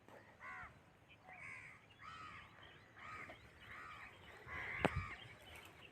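Crows cawing over and over, roughly one or two caws a second, faint and at a distance. A single sharp knock sounds near the end.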